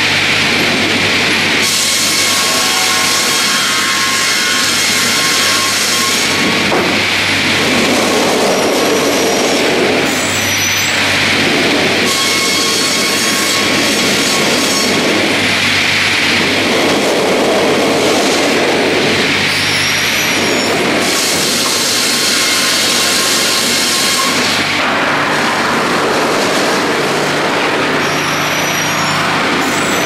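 Automated double-bladed circular sawmill running over a steady motor hum, its blades sawing a spruce log in repeated passes. Bright, hissing cutting stretches alternate every few seconds with the lower rumble of the carriages running back along the rail feeder.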